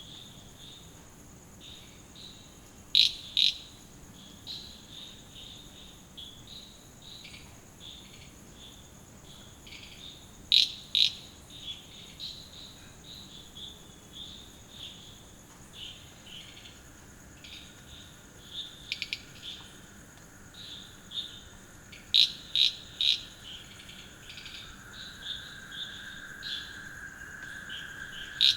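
Night chorus of crickets and frogs after rain: a steady high-pitched cricket trill, with short calls repeated irregularly and louder clusters about 3, 11 and 22 seconds in. A lower steady trill fades in about halfway through and grows louder toward the end.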